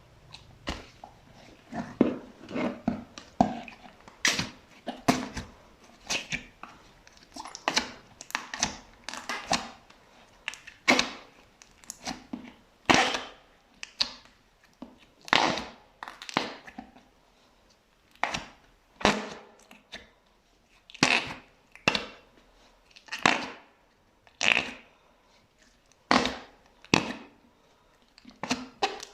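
Fluffy slime being pressed and squeezed, giving short, sharp crackling pops, irregular, about one or two a second.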